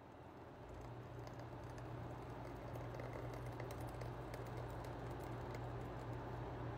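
A thick, foamy blended fenugreek and aloe vera mixture pouring in a steady stream from a glass jug into a ceramic bowl, with faint crackling ticks from the bubbly liquid, over a steady low hum. The sound grows a little over the first two seconds as the stream builds.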